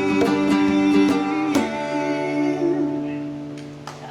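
Live acoustic guitar playing the closing strums of a song, then the last chord ringing out and fading away over the final couple of seconds.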